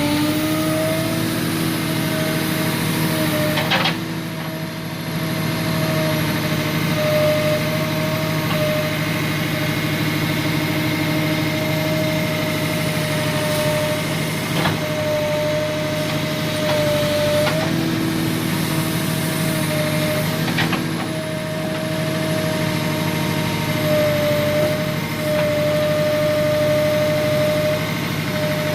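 Tractor loader backhoe's diesel engine running steadily, with a steady whine that wavers slightly in pitch and a few sharp knocks along the way.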